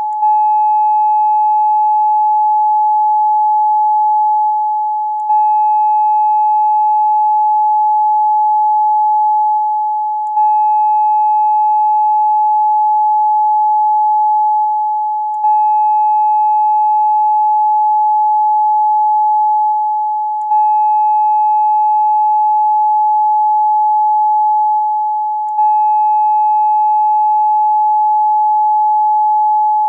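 Steady 852 Hz sine tone, the solfeggio frequency used for third-eye chakra meditation, with two faint higher overtones. The tone dips slightly and restarts about every five seconds, a short loop repeated.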